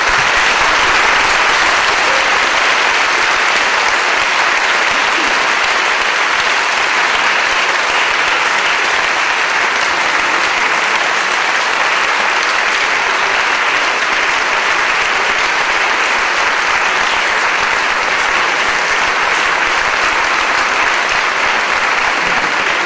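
Audience applauding, loud and steady, a long unbroken round of clapping from a large hall full of people.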